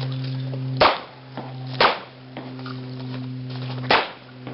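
Three pistol shots from a handgun match stage: two about a second apart near the start, then a third about two seconds later. A steady low hum runs underneath.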